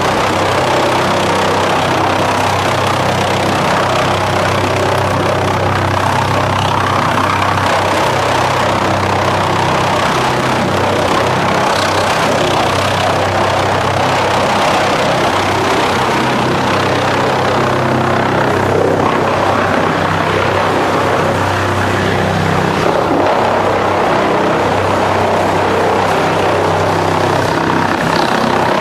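ASILVA DFR4-550s drum chipper running while boards and logs are fed in on its infeed conveyor: a loud, steady machine drone with a low hum and no let-up.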